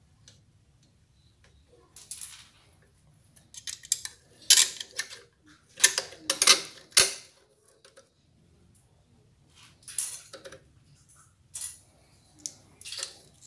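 Metal clinking and scraping as a stainless aftermarket motorcycle muffler and its mounting bracket are handled and fitted against the exhaust mount and clamp. The clinks come irregularly, thickest in the middle and again near the end.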